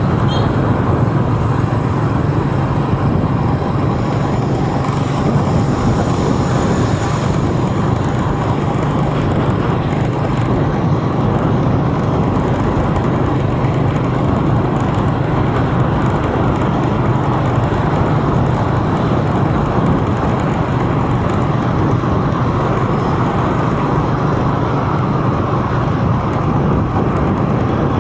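Steady vehicle and road noise from driving through city traffic, an even rush with a constant low hum.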